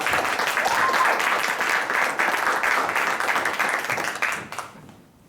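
Theatre audience applauding, a dense patter of many hands clapping that fades out about four and a half seconds in.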